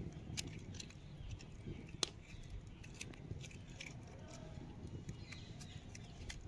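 Small kitchen knife clicking and scraping against a steel plate as tomatoes are cut open and hollowed out: scattered light clicks, with one sharper tap about two seconds in.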